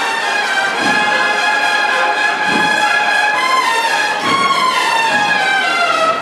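Brass band playing a slow processional march: held horn notes with a slow, steady beat underneath.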